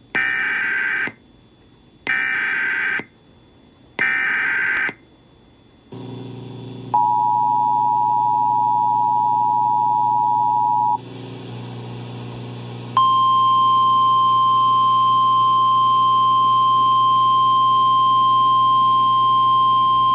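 Emergency Alert System warning tones. Three short screeching SAME header data bursts come first, then the two-tone attention signal for about four seconds. After a short gap, a single steady warning alarm tone begins and holds, with a low hum under the tones from about six seconds in.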